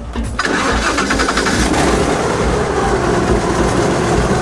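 Airboat engine and propeller noise that comes in suddenly about half a second in, then runs loud and steady.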